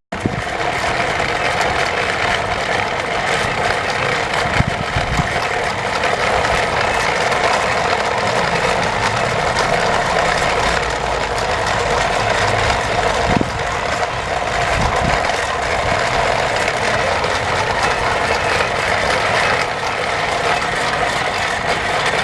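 Battery-powered toy train's small electric motor and plastic gears whirring steadily as it drives along.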